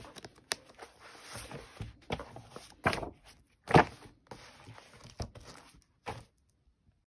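Paper rustling and handling of a thick printed workbook: pages being turned and shuffled, with a louder flap about halfway through as the book is closed.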